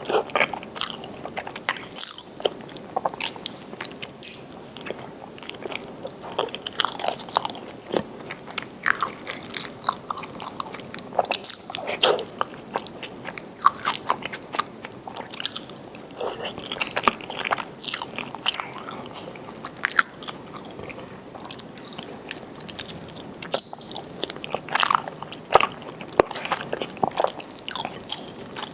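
A person biting and chewing food close to the microphone, with frequent short crunches and sharp mouth clicks.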